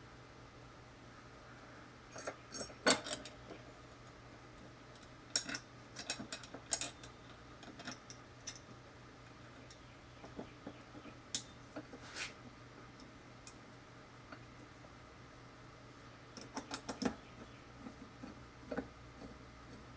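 Small metal parts being handled and fitted: scattered clicks and light clinks as a steel motor bracket and a screw knock against a drill press head, in several short clusters. Near the end a screwdriver turns the screw in with a run of small clicks.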